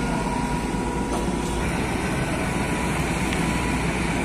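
The crane truck's diesel engine running steadily, a low, even rumble with a faint steady high tone over it.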